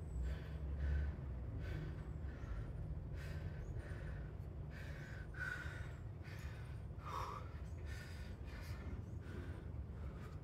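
A person breathing hard and fast from exertion during a kettlebell and bodyweight circuit: quick, even, noisy breaths at about two a second, with a sharper gasp about seven seconds in.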